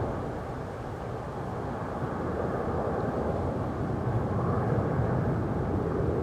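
Jet engines of a Boeing 777 freighter, GE90 turbofans, at takeoff power as the aircraft climbs away: a steady low rumbling noise without distinct tones, swelling and easing slightly.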